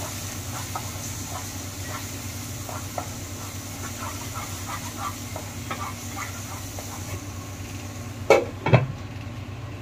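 Spice masala paste sizzling in oil in a non-stick kadhai while a spatula stirs and scrapes it with small light clicks, a steady hiss under the scraping. Near the end a glass lid knocks against the pan twice.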